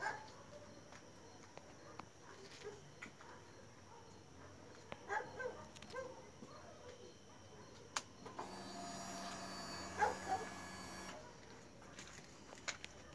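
A click, then the Kawasaki Z400's electric fuel pump whirring steadily for about three seconds as the ignition is switched on, priming before the engine is started.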